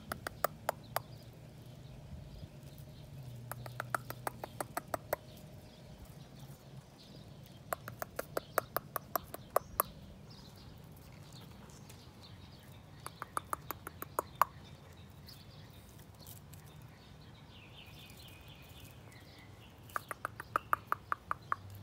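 Rapid runs of mouth clicks, tongue clicks or kissing noises made to call a baby squirrel down to a hand with food. They come in about five short bursts of quick, evenly spaced clicks with pauses between them.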